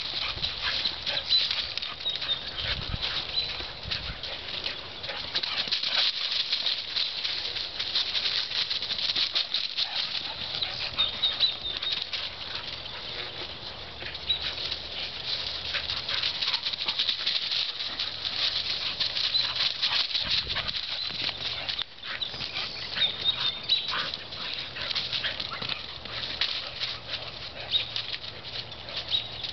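Dry fallen leaves crunching and rustling continuously under running, playing dogs and footsteps through the leaf litter.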